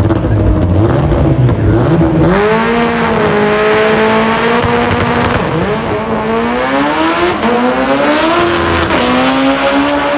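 A performance car's engine revving hard, its pitch climbing and dipping again and again, with a loud rushing hiss that sets in about two seconds in.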